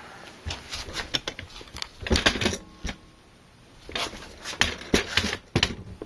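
Handling noise: irregular clicks, taps and rustles as a handheld camera is moved about a metal computer case.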